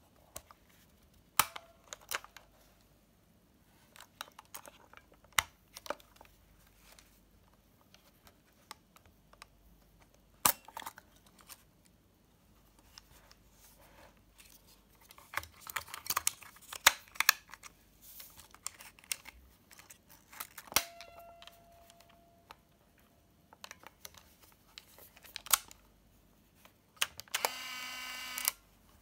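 Olympus Trip AF 50 compact 35mm film camera being handled: scattered plastic clicks and snaps as its back door is unlatched, opened and shut, then a steady motor whir about a second and a half long near the end.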